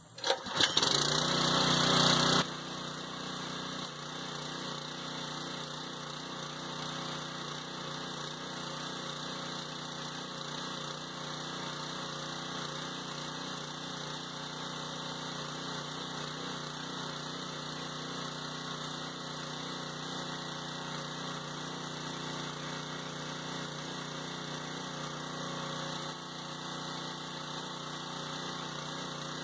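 Simpson MS61043 gas pressure washer's 212 cc engine running at a steady speed while the washer sprays soap through its multi-function nozzle. A loud rush of noise fills the first two seconds before it settles to the steady engine note.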